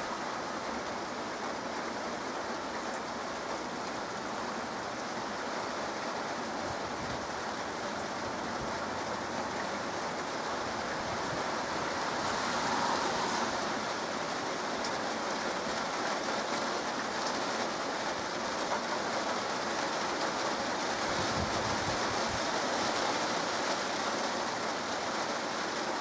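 Heavy rain falling steadily, an even hiss that swells slightly about halfway through.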